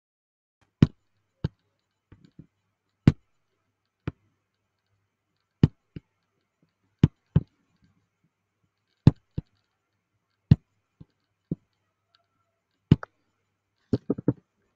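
Computer mouse clicking: single sharp clicks every second or two, some in quick pairs. Near the end comes a rapid run of keyboard key presses.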